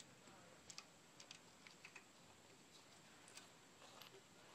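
Near silence broken by faint, scattered small clicks: a steel timing chain and its sprocket being handled and seated by gloved hands.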